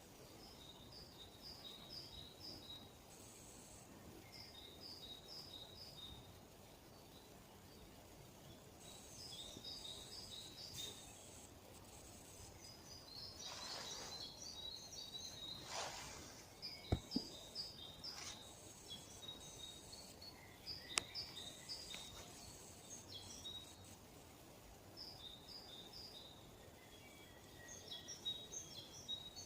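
Songbirds singing: one bird repeats short phrases of quick, high notes alternating between two pitches every few seconds, with other bird calls and a couple of sharp clicks in the middle.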